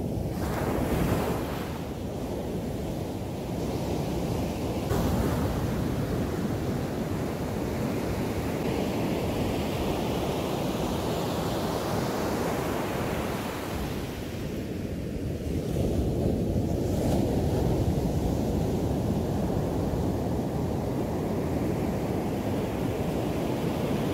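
Ocean surf breaking and washing up a sandy beach, the rush of water swelling louder several times and easing between waves.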